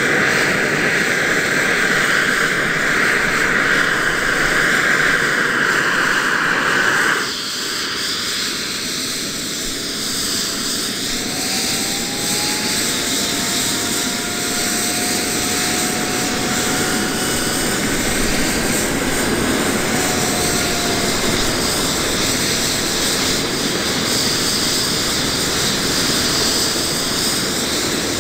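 Airbus H135 helicopter on the ground during start-up, its turbine engines and main rotor running. A steady loud hiss cuts off suddenly about seven seconds in, and then faint rising turbine whines are heard as the rotor spins up.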